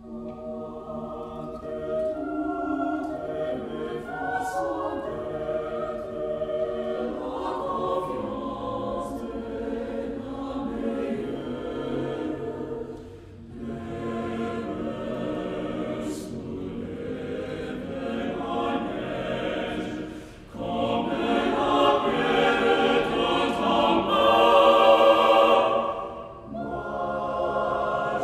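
Mixed chamber choir singing a cappella in French, in phrases broken by short breaths about 13, 20 and 26 seconds in. The singing swells to its loudest from about 21 to 26 seconds in.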